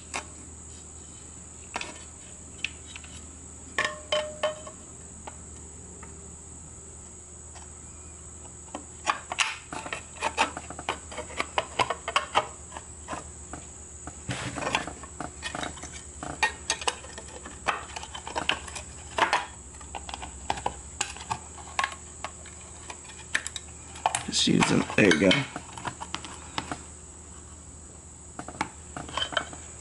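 Scattered clicks, taps and clatter of metal parts as the rope pulley of an Evinrude 3 HP outboard's recoil starter is worked back down onto its spring in the aluminium starter housing, louder knocking about three-quarters of the way through.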